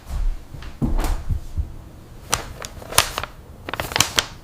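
Kitchen handling sounds: a series of sharp knocks and clicks, with a few dull thumps in the first second and a quick cluster of clicks near the end.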